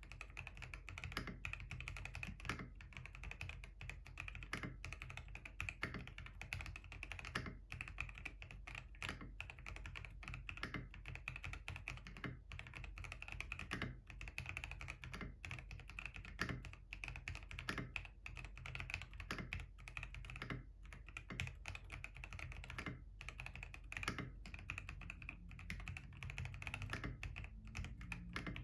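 FL eSports Q75 transparent-case mechanical keyboard with Kailh Clione Limacina switches being typed on continuously in a typing test: a steady stream of rapid key clacks, with some strikes louder than the rest.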